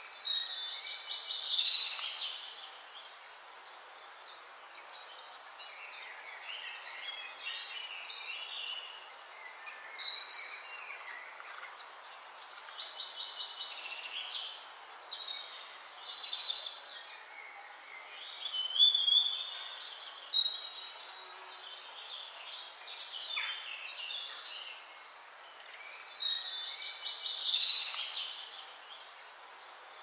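Songbirds singing in short, bright, high-pitched phrases that come every few seconds, over a steady faint hiss.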